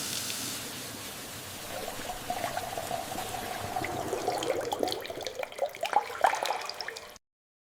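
Liquid pouring and trickling: a steady hiss that gives way to a wavering bubbly tone with splashing clicks, growing busier about five to six seconds in. It cuts off suddenly near the end.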